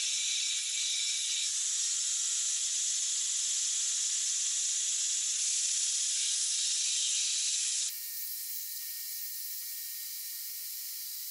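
Belt grinder with a 120-grit belt grinding the steel face of a hammerhead, a steady high hiss, as the flat face is dressed to a gentle crown and chamfer. About eight seconds in it drops suddenly to a quieter hiss.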